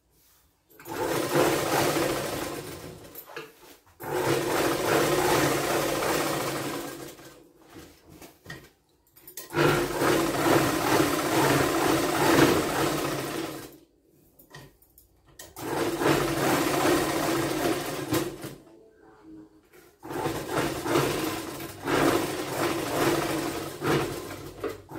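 Motor-driven sewing machine stitching a lined blouse, running in five bursts of a few seconds each with short stops between them as the fabric is guided and turned.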